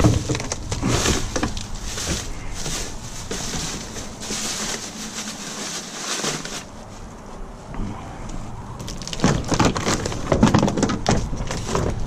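Thin plastic shopping bags crinkling and rustling, and plastic drink bottles being shifted on a van's cargo floor. Louder crackling and knocks come near the end.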